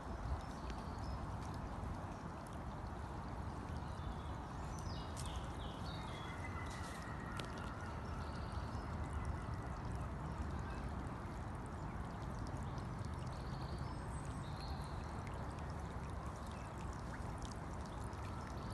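Floodwater running steadily, a continuous rushing and gurgling of flowing water.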